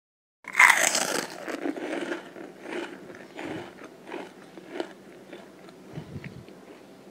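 A loud crunch as someone bites into a crispy fried chicken drumstick with a flour-and-starch coating, then a string of softer crunches from chewing that fade away.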